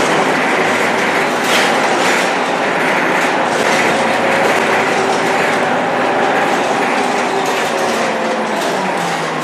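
Inside the cabin of a Scania K230UB bus with a ZF 6HP502C automatic gearbox while driving: steady engine and driveline whine over road noise, with short rattles from the bus body. The loudness eases slightly near the end.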